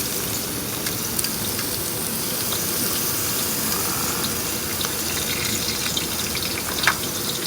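Waterfall rushing steadily, with a few faint clicks over it.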